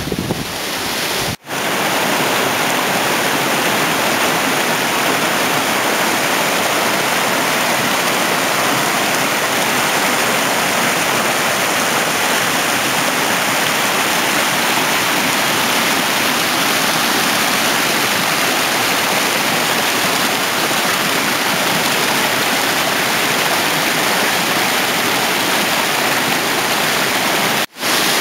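Mountain stream cascading over rocks: a steady, full rush of falling water. It breaks off for an instant about a second in and again just before the end.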